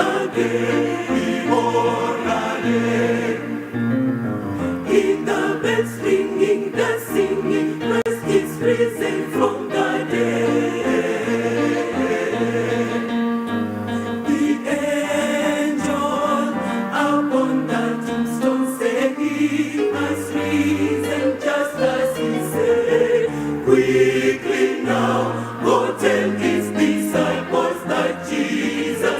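Church choir singing a gospel song in several-part harmony, with held chords over a steady low bass line.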